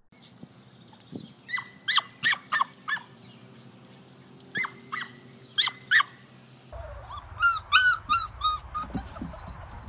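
A small dog yapping in two bursts of sharp, high barks. After a cut, puppies whine and yip in quick, high squeaks.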